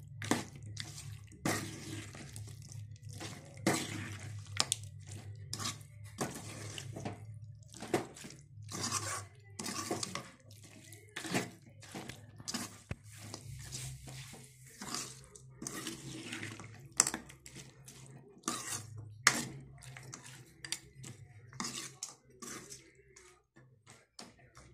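Steel spoon scraping and clinking against an aluminium kadai as a thick chicken fry is stirred, in quick irregular strokes over a steady low hum.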